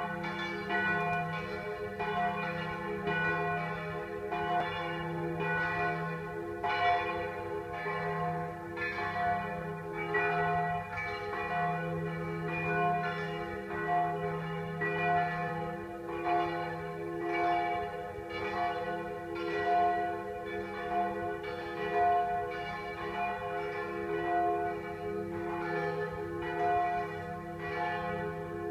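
Church bells ringing: several bells struck one after another in a steady rhythm, about one strike a second, their tones overlapping and ringing on without a break.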